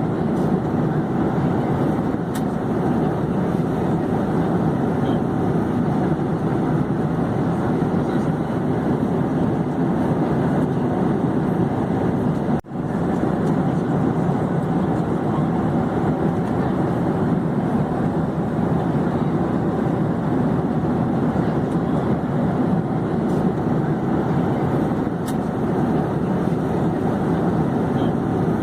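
Airplane in flight: a steady, even rushing drone. It cuts out for an instant about halfway through, then resumes unchanged.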